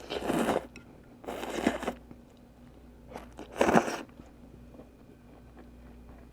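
Close-miked eating of pho noodle soup, heard as three short, loud bursts of slurping and chewing.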